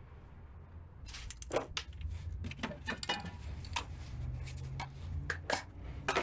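Aerosol clear-coat spray can sputtering in short, irregular hissing spurts over a low background hum. The faulty nozzle tip is blowing mostly air and little coating.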